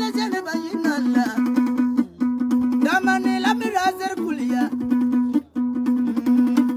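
Kologo, the Frafra calabash lute, plucked in a quick repeating pattern over a steady drone note, with a man singing along in the middle of the passage.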